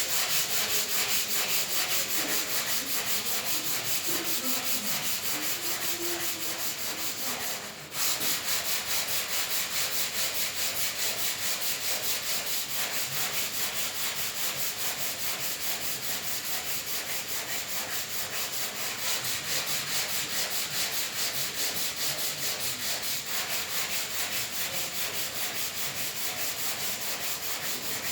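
Steady sanding with 150-grit abrasive over the car's tailgate panel, a continuous scratchy hiss with an even stroke rhythm, and a brief break about 8 seconds in.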